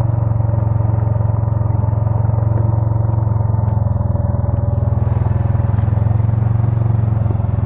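Quad (ATV) engine running steadily in low gear, a constant low drone, while it tows a heavy load.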